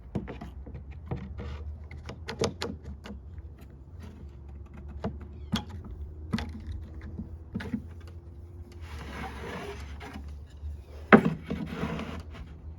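Irregular knocks and clicks of wooden pieces being handled, with two stretches of scraping as wood rubs against wood. The loudest knock comes near the end.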